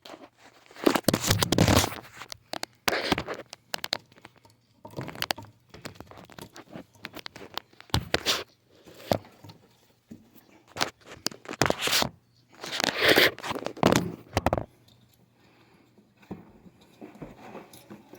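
Punch-down tool seating a Cat6 cable's wires into a keystone jack one by one: sharp snaps mixed with scraping and crinkling as the wires are handled, in bunches a second or two apart.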